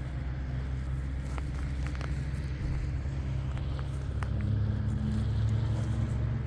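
An engine running with a low, steady hum, growing louder about four seconds in and cutting off suddenly at the end.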